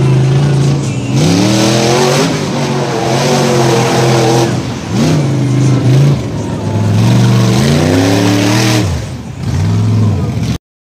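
Mud-bogging vehicle's engine revving hard over and over, its pitch climbing and dropping several times as the throttle is worked, until the sound stops abruptly near the end.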